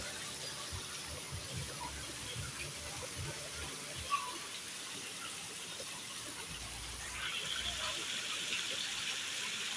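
Steady running, splashing water that gets louder about seven seconds in.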